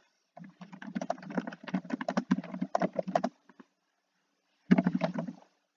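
Typing on a computer keyboard: a quick run of keystrokes for about three seconds, a pause, then a short second burst of keystrokes near the end.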